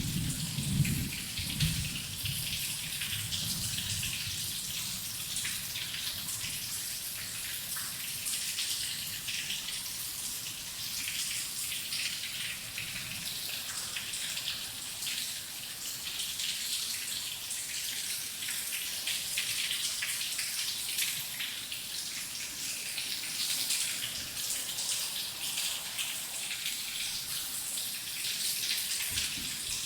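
Heavy rain falling steadily, a dense patter of drops. A low thunder rumble dies away in the first couple of seconds.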